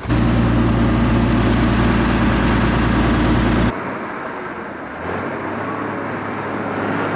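PTS-M tracked amphibious carrier's engine running loud and steady. About three and a half seconds in, the sound cuts abruptly to a quieter, steady engine drone.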